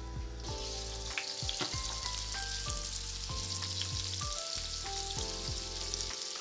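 Sea bass fillets frying in butter and olive oil in a non-stick pan: a dense, steady sizzle that sets in about half a second in. Background music with a melody and a bass line runs underneath.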